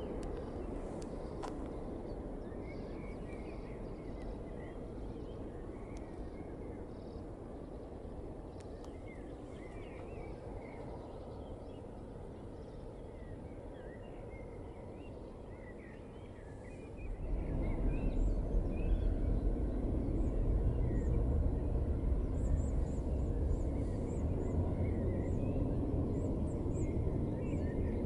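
Distant jet engine rumble of a McDonnell Douglas MD-11's three turbofans at takeoff power as it rolls, lifts off and climbs, with birds chirping over it. About 17 seconds in, the low rumble becomes suddenly louder and deeper and stays so.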